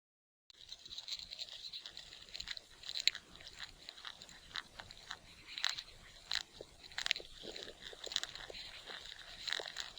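An animal chewing and crunching food: many small crisp bites at an irregular pace, starting about half a second in.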